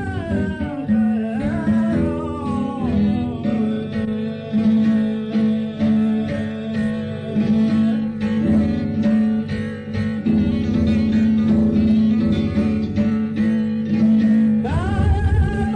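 Sardinian cantu in re (canto a chitarra): a singer ends an ornamented, falling phrase over acoustic guitar in the first few seconds, then the guitar plays on alone with steady repeated strums, and a voice comes in again with a new phrase near the end.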